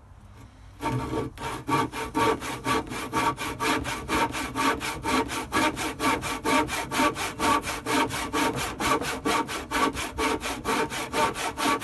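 Old rusty hand saw cutting through a wooden plank, starting about a second in with quick, even back-and-forth strokes.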